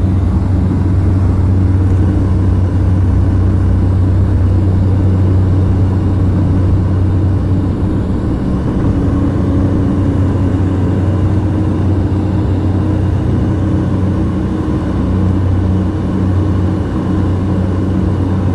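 Light plane's piston engine and propeller running steadily, heard from inside the cabin as a loud, even low hum.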